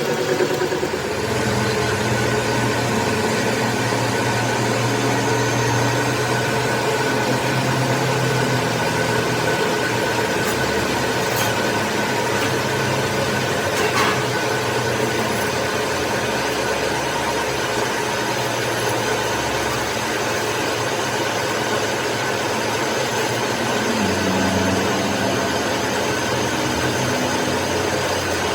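Workshop machinery running steadily: a continuous mechanical hum with a noisy hiss over it and one short click about halfway through.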